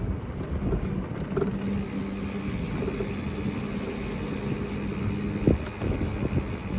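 Rolling tyre rumble and wind noise from riding a bicycle on a paved street, with a steady low hum and a sharp knock about five and a half seconds in.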